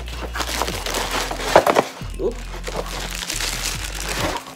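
Crinkling plastic wrapping and cardboard being handled as a plastic-wrapped stand part is pulled out of its box, with a dense run of small crackles and rustles, loudest about one and a half seconds in.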